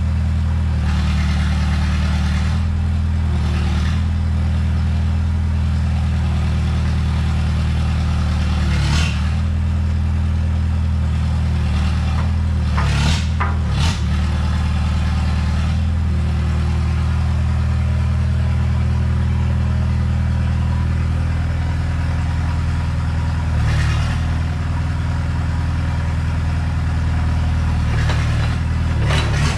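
Rebuilt diesel engine of a Komatsu PC60-5 mini excavator running steadily at idle, with a few short knocks and clatters over it.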